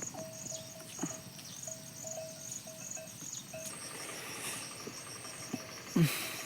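Insects chirping in a steady rhythmic pulse, about two to three chirps a second, with a short loud thump near the end.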